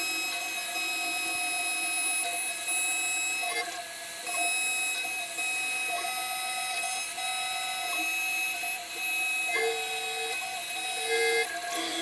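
CNC 6040 router milling an aluminium plate: the spindle's steady high whine over the pitched hum of the stepper motors, which shifts, stops and restarts every second or two as the axes change direction.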